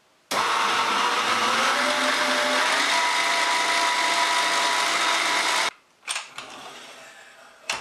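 Electric stand mixer whisking cake batter. The motor switches on, rises slightly in pitch as it gets up to speed, runs steadily for about five seconds, then cuts off suddenly. A couple of light knocks follow.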